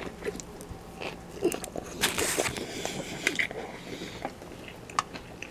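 A person biting into and chewing a beef patty sandwich on soft white bread with a pickle: irregular small clicks and short wet mouth noises, busiest about two seconds in.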